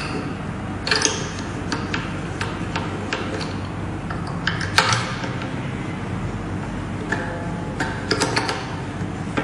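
String winder turning a ukulele tuning peg, tightening a new string, with irregular light clicks and ticks from the winder and tuner.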